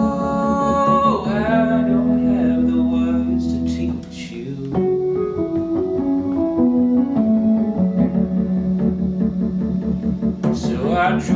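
Wurlitzer electric piano playing an instrumental passage between sung lines: sustained low chords with a stepping melody line in the middle. A man's voice holds a sung note at the start and comes back in near the end.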